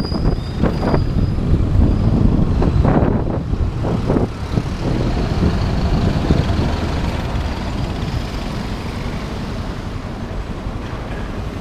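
Motorcycle riding in city traffic: engine and road noise mixed with wind on the microphone. It is gusty and uneven for the first four seconds or so, then settles and eases off.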